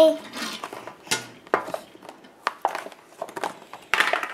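Irregular crinkles, clicks and taps of a Hot Wheels toy car's cardboard-and-plastic blister pack being handled and pried open, with a louder burst of crinkling about four seconds in.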